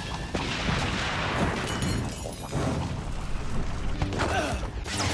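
Sci-fi movie action sound effects: a dense, loud run of booms, crashes and sharp impacts.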